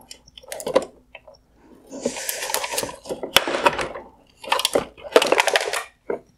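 Plastic LED projector module of a 2016–2019 GMC Sierra headlight being twisted and popped off its mount in the plastic housing: a click, then several short bouts of scraping, rattling and clicking of hard plastic.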